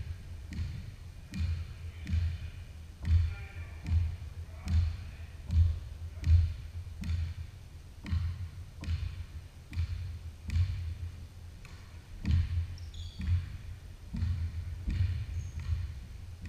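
A basketball being dribbled on a hardwood gym floor, a thump a little more than once a second, echoing in the large gym. Sneakers squeak briefly a few times near the end.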